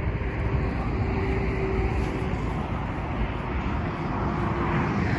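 Steady rumble of road traffic, with a faint one-pitch hum through the middle.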